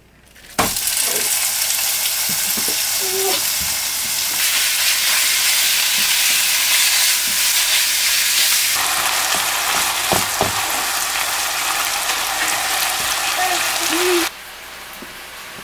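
Ground chicken sizzling as it fries in a hot non-stick frying pan, stirred and broken up with a plastic spatula, with a few light knocks of the spatula against the pan. The sizzle starts loudly about half a second in as the meat hits the pan and drops away sharply shortly before the end.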